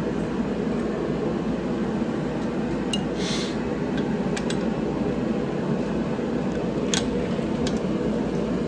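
Steady machine hum, with a few light sharp clicks and a brief hiss over it.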